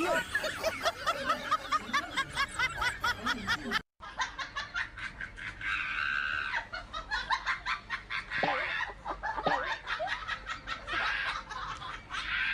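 A person laughing in rapid, repeated bursts. The laughter breaks off in a moment of silence about four seconds in, then picks up again.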